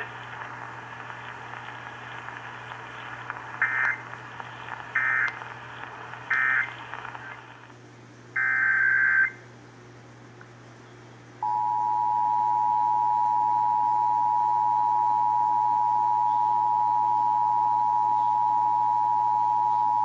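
Emergency Alert System test playing through a Sangean HD radio's speaker: three short digital header bursts about a second and a half apart over a faint hiss, a longer burst a little later, then the steady two-tone EAS attention signal, beginning about 11 seconds in.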